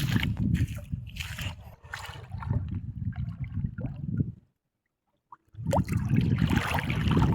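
Water sloshing and gurgling, with a heavy low rumble under it. The sound cuts out completely for about a second midway, then comes back.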